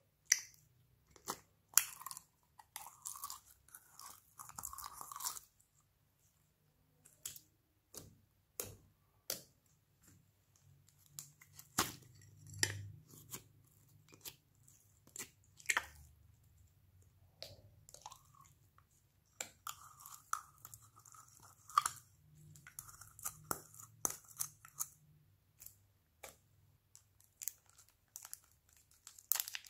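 Slime being squeezed and pressed by hand, with sticky clicks and pops and crackly stretches where it is worked into foam-bead slime. Near the end, a plastic packet crinkles as it is peeled open.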